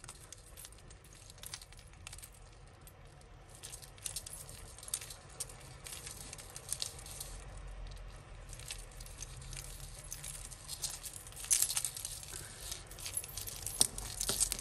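Necklace chains and costume jewellery clinking and jingling in irregular small clicks as tangled necklaces are handled and pulled apart, busier and louder near the end.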